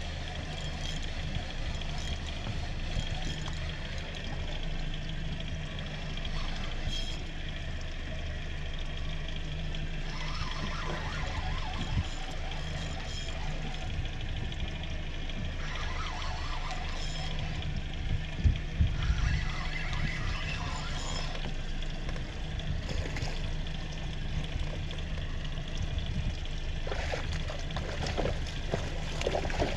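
A Suzuki 90 outboard idling with a steady low hum, while water slaps and splashes against the boat now and then. There is one heavier bump about eighteen seconds in.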